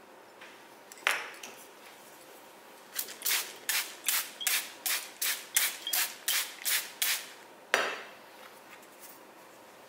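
Trigger spray bottle misting the shaped baguette dough before baking: one spritz about a second in, then a quick run of about a dozen spritzes at about three a second, and one more near the end.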